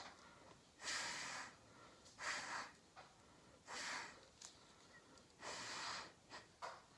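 Puffs of breath blown through a straw onto wet acrylic pour paint, pushing the paint across the ornament: four main breathy hisses about a second and a half apart, with a few fainter ones between.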